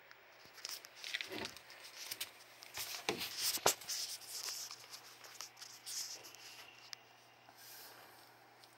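Close handling noise: irregular rustling, scraping and light knocks as the phone is moved in close and a hand rubs the scaly head of a pet alligator, with one sharper click about three and a half seconds in.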